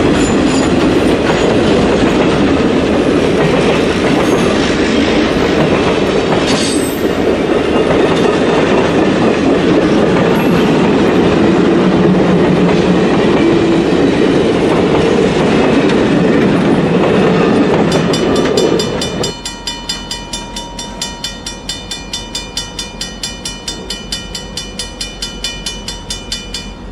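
CSX passenger train's cars rolling past close by, the wheels clattering over the rail. About two-thirds through this gives way to a railroad grade-crossing bell ringing rapidly and steadily, with the crossing gates down and the warning lights flashing.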